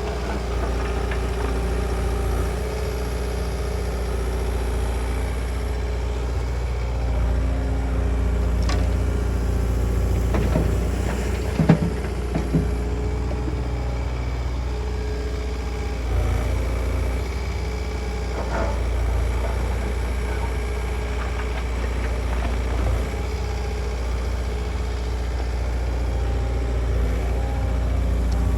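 Construction machine's engine running steadily at a work pace, with a short cluster of clanks about halfway through.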